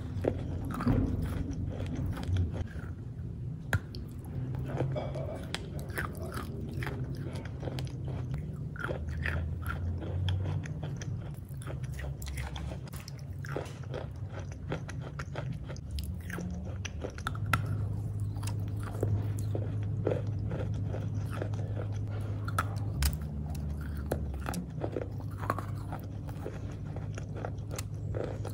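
Close-up biting and chewing of chunks of chalk: many sharp, irregular crunches as pieces break off and are ground between the teeth, sped up, over a low steady hum.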